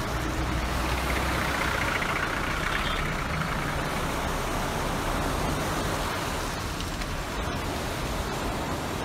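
Fast-flowing floodwater rushing, a steady noise with no breaks.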